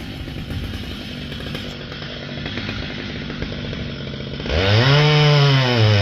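Two-stroke chainsaw running at low speed with a rough, chattering sound, then revved hard to full throttle about four and a half seconds in, its pitch sweeping up, dipping briefly near the end and rising again.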